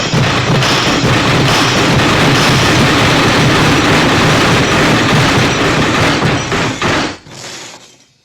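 MGM's 'elephant smash' crash sound effect: a long, loud, dense run of crashing and rumbling that cuts off sharply about seven seconds in, then fades away.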